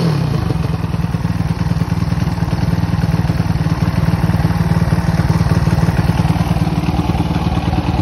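Zongshen ZS190 single-cylinder four-stroke engine in a mini motorcycle idling steadily, set a tick over 2000 RPM, exhausting through a new muffler fitted with a baffle (dB killer).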